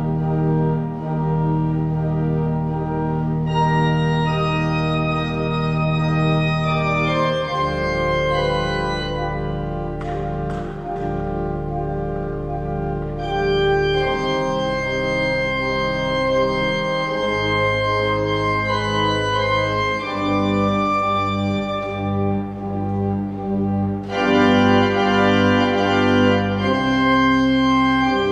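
Church pipe organ playing the postlude at the close of Mass: sustained full chords that change every second or two, the sound growing brighter and fuller about four seconds in and again near the end.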